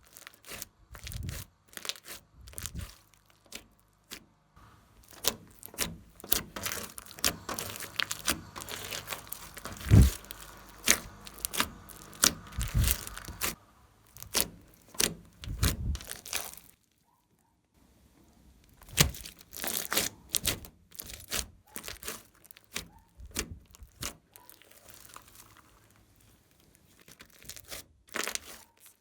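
Glossy slime being handled and stretched, giving a run of sticky popping and crackling clicks, with a short pause a little past the middle.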